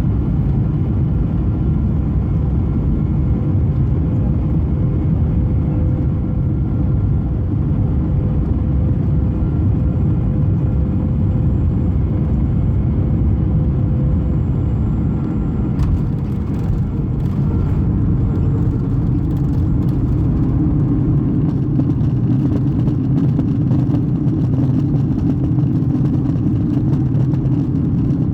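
Boeing 737 cabin noise on the descent into landing: a steady low rumble of engines and airflow with a faint hum. About halfway through there is a sharp knock followed by rattling, and the low rumble then grows heavier.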